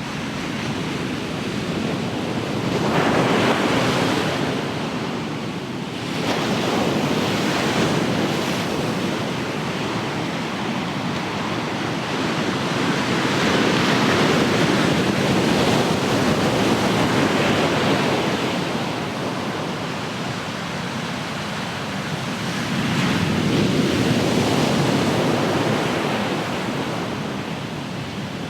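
Ocean surf: waves breaking and washing up the shore in a rush of noise that swells and falls back four times.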